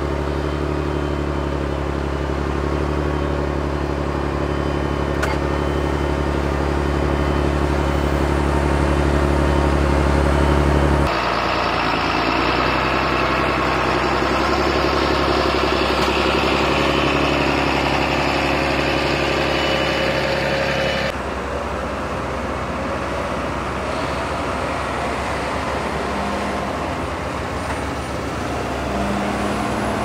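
Diesel engines of large John Deere tractors and a wheel loader running under load while pushing and compacting chopped maize on a silage clamp. The engine sound is steady, then changes abruptly about a third of the way in and again about two thirds in.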